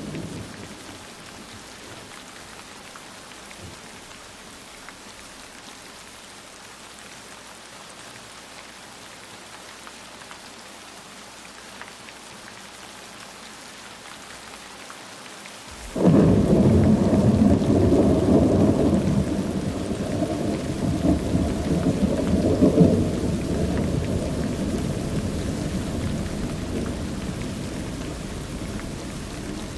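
Steady heavy rain, then about halfway through a sudden thunderclap that rolls on as a long low rumble, slowly fading.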